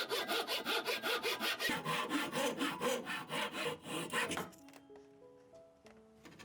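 Hand saw cutting wood in quick, even back-and-forth strokes, about five a second. The sawing stops about four seconds in, leaving soft background music notes.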